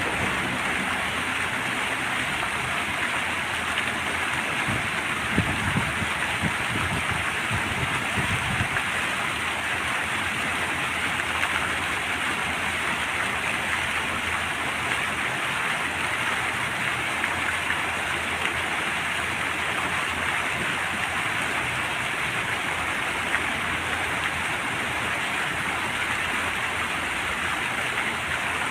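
Fountain water splashing and falling, a steady even rush.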